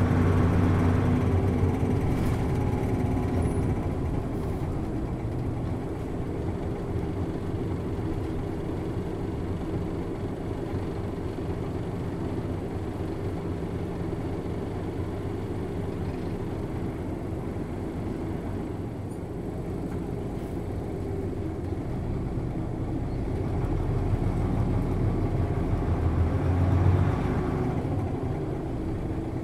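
Hino M10U diesel engine of a 1994 Hino Blue Ribbon city bus, heard from inside the passenger cabin while the bus drives. It runs loud at first, settles quieter through the middle, then builds up again near the end and drops back briefly.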